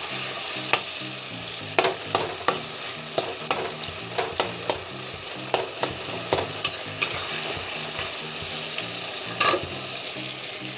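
Sliced tomatoes frying in hot oil in a metal kadai with a steady sizzle, cooking down toward a paste. A spatula stirring them scrapes and taps sharply against the pan a dozen or more times.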